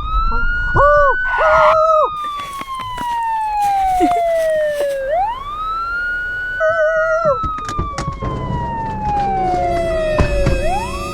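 Police siren wailing: each cycle rises quickly and then falls slowly over about four seconds, starting again about five seconds in and again near the end. Short warbling tones sound twice over it, and music comes in near the end.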